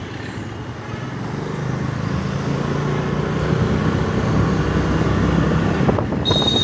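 Motorcycle ride through street traffic: a steady engine and road-noise rumble that grows gradually louder. A short high steady tone starts near the end.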